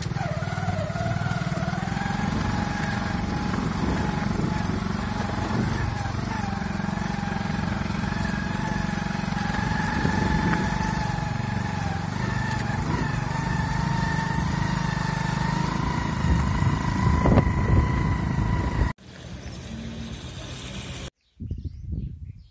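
Small motorbike engine running steadily at cruising speed under two riders, with a low rumble over the microphone; it cuts off suddenly about three seconds before the end, leaving a short, quieter stretch.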